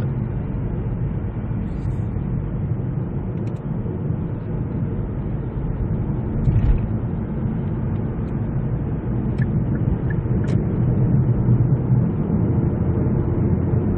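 Cabin noise of a 2019 Kia Niro under throttle on the road, a steady low hum of tyres and drivetrain. There is a single low thump about six and a half seconds in.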